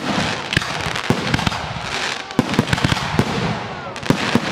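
Aerial fireworks display: a rapid barrage of shell bursts, about three sharp bangs a second over a continuous dense hiss of sparks.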